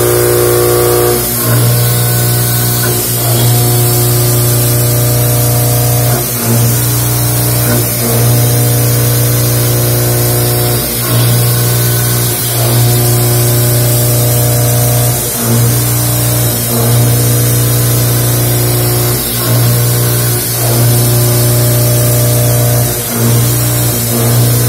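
5-axis gantry machining center milling a metal block in a heavy cut. A loud, steady cutting tone carries higher pitched tones that change every second or two, with short dips as the cutter's path changes, over a constant hiss.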